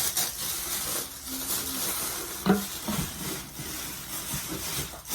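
Tissue paper rustling and crinkling as clothes are unwrapped from a subscription box, with a sharper knock about halfway through.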